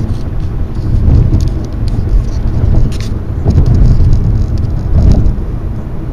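Car driving at freeway speed, heard from a dashboard camera inside the car: a loud low rumble of road and engine noise that swells and eases every second or two, with a few faint ticks.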